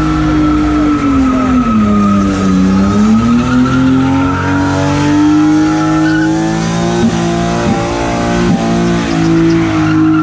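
Car engine held high in the revs during a burnout, its pitch dipping briefly about two seconds in and climbing back to hold steady, with the spinning tyres squealing. A few sharp cracks come in the second half.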